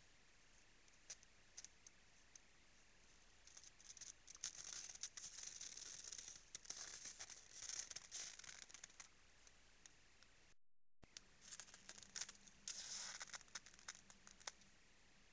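Moose at a salt lick: faint crunching and scraping in the snow and frozen ground, in two stretches of a few seconds each, broken by a moment of dead silence about two-thirds through.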